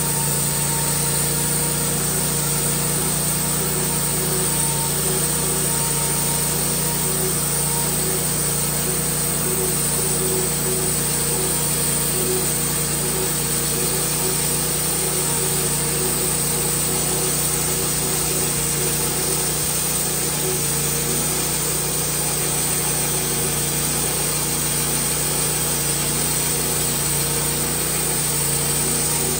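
Wood-Mizer LT15 portable bandsaw mill running steadily, its engine driving the band blade through a cherry log.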